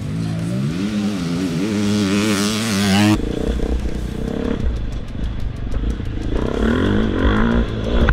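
Enduro motorcycle accelerating hard away from a start, its engine pitch climbing and wavering as it revs. About three seconds in it gives way to the onboard sound of an enduro bike riding a dirt course, a heavier low rumble with the engine revving up again near the end.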